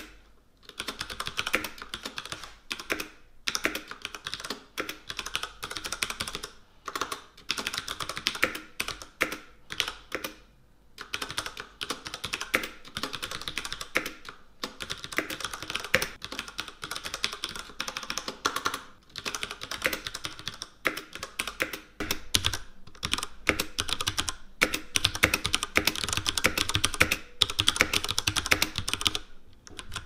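Typing on a Ducky Shine 3 TKL mechanical keyboard with tactile, non-clicky Cherry MX Brown switches: a fast, continuous patter of keystroke clacks, with brief pauses now and then.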